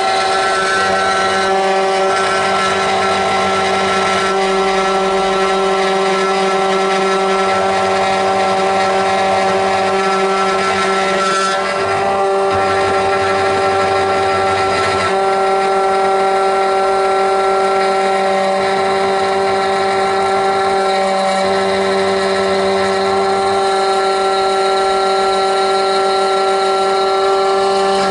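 SEC-E9 electronic key cutting machine running, its cutter milling the second side of a HU92 key blade: a steady motor whine with a slight dip about twelve seconds in.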